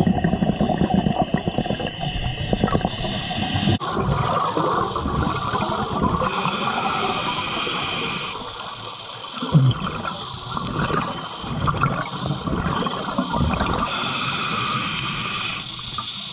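Scuba diving heard underwater: a diver breathing through a regulator, with bubbling, gurgling exhaled air and a hiss twice, about eight seconds apart.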